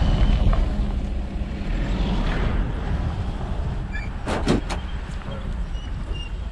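Low, steady rumble of a vehicle running, with a few sharp clicks about four seconds in and faint bird chirps in the second half.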